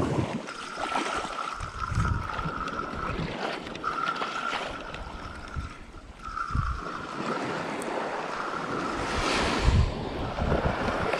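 Small surf washing onto a sandy beach, with wind buffeting the microphone. Over it a spinning reel whirs in short stop-start bursts as a popper is retrieved.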